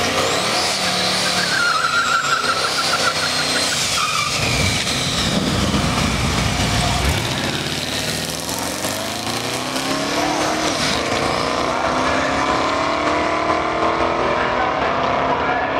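C4 Corvette drag car launching and running a pass at wide-open throttle. The engine pitch climbs steadily through the second half as the car pulls away down the strip.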